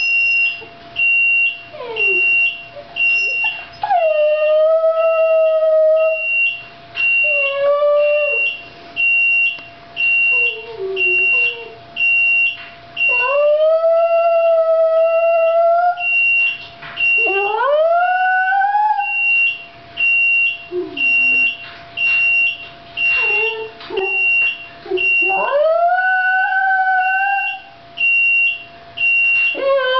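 A Shiba Inu howling along with an oven's beeping alarm. There are about six long howls that rise in pitch and then hold, with short whimpers between them, over the steady repeated beep of the alarm.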